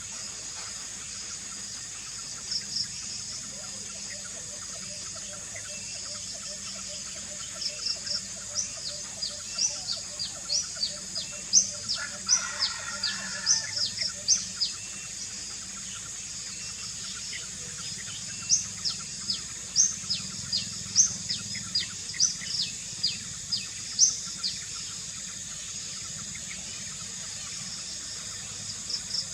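Birds chirping in two bouts of rapid, short, high-pitched calls that slide down in pitch, with a pause of a few seconds between them, over a steady high hiss.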